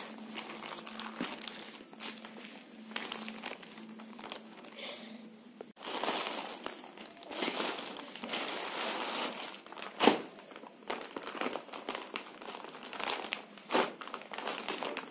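Plastic courier mailer bag and clear polythene wrapping crinkling as they are handled and opened. The rustling gets busier about six seconds in, with a sharp crackle about ten seconds in and another near the end.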